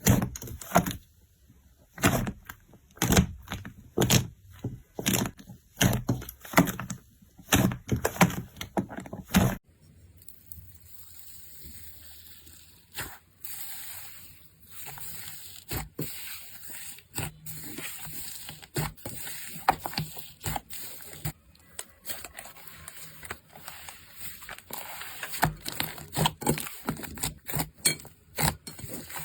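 Slime being pressed and worked by hand close to the microphone: a run of loud, sharp pops and clicks. About ten seconds in it changes to a quieter, soft crackling with scattered clicks.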